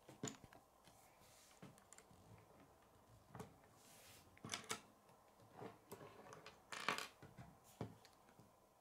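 Faint, scattered clicks and taps of plastic K'nex pieces being handled and set down on a wooden table, with a slightly longer rustle about seven seconds in.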